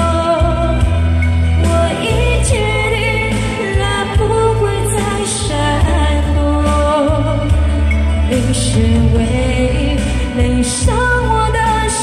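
A woman singing a Chinese pop song live into a microphone over a loud karaoke backing track, with a heavy bass line and occasional cymbal hits.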